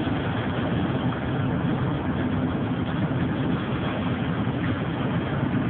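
Steady engine and road noise heard from inside a moving car driving through a rainstorm.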